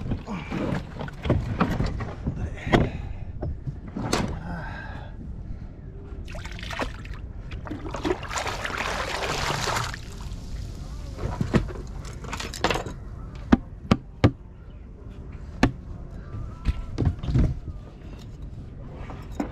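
Handling knocks and clicks on a kayak. About eight seconds in, a bucket of seawater is swung out and emptied over the side, splashing and pouring for about two seconds before cutting off.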